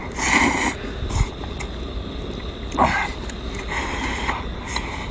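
A man slurping noodles from a bowl, in several short, loud bursts of sucking: near the start, about three seconds in, and again about four seconds in.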